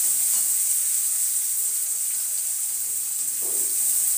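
Chopped onion, garlic and curry leaves sizzling in hot oil in a steel kadhai as they are sautéed and stirred with a plastic spoon: a steady high hiss.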